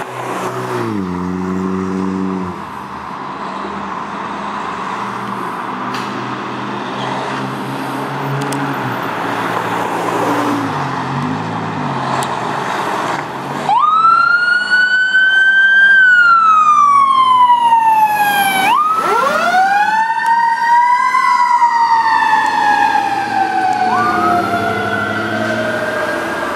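A fire engine's diesel engine runs as the truck pulls out. About halfway through, a Federal Q2B mechanical siren winds up quickly to a loud high wail and slowly falls in pitch as it coasts down. It is wound up again twice more near the end.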